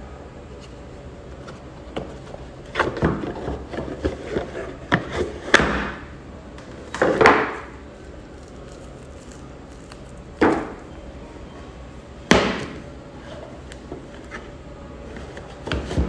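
Rolex watch box and packaging being handled: a quick run of small clicks and taps, a brief rustle or scrape, then a few single knocks as pieces are set down.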